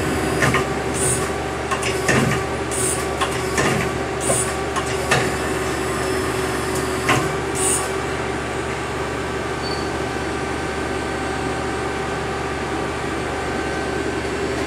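Mazak QT30 CNC lathe's tool turret indexing: a series of short clunks and hissing bursts, several a second apart through the first eight seconds or so, over the machine's steady hydraulic hum; after that only the hum goes on.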